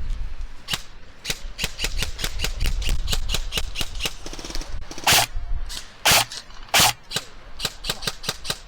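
Airsoft guns firing in a skirmish: a quick, irregular string of sharp snaps and cracks, with three much louder shots about five, six and seven seconds in.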